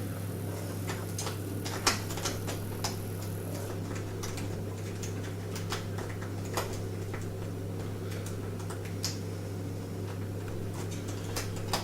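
A lock pick working the pins of a front-door pin-tumbler lock under a tension bar, giving small irregular metal clicks and ticks, with a sharper click about two seconds in. A steady low hum runs underneath.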